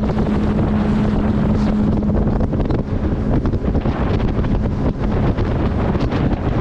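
Heavy wind buffeting the microphone on a small boat under way, over the running of its outboard motor, with a steady engine hum through the first couple of seconds.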